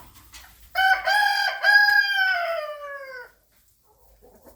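A rooster crowing once: one long call of about two and a half seconds that drops in pitch at the end.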